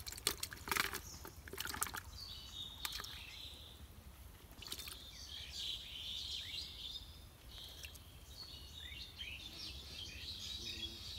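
Small birds chirping and twittering in quick runs of high notes, with a few sharp clicks and rustles in the first two seconds.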